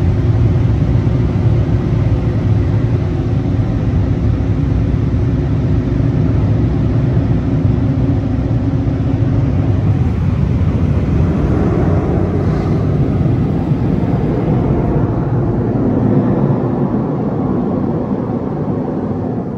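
Car wash air dryer blowers running, a loud steady rush of air over the car that dies away near the end.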